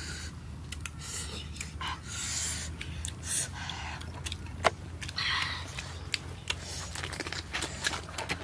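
Close-up eating sounds: chewing and wet mouth clicks with small crunches as pieces of fried catfish are bitten and chewed, a quick run of sharp clicks and crackles, the loudest a single sharp click about halfway through.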